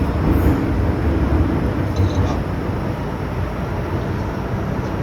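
MTR M-train running between stations, heard from inside the car: a steady rumble of wheels on the track and running gear, with a few faint light squeaks.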